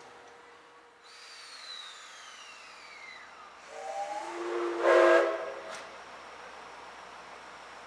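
JNR Class C57 steam locomotive whistle blown once, about two seconds long: a chord of several tones in a rush of steam, loudest near its end before it cuts off. Before it, a faint high tone glides steadily downward.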